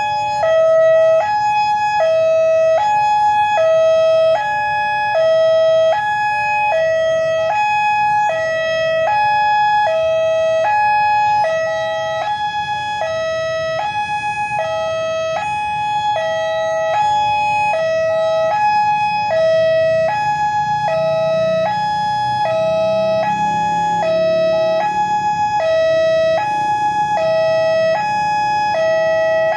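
Railway level-crossing warning siren sounding a steady two-tone hi-lo alternation, the old siren of the crossing before its replacement. A low rumble builds under it about two-thirds of the way through.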